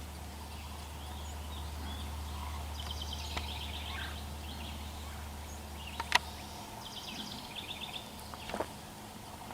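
Small birds chirping in short, rapid trilled phrases, with a few sharp clicks, the loudest about six seconds in, and a low rumble that fades out after about six and a half seconds.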